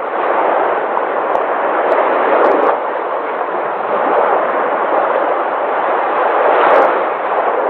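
Sea waves washing onto a shore: a continuous rush of surf that swells as a wave breaks about two and a half seconds in and again near the end.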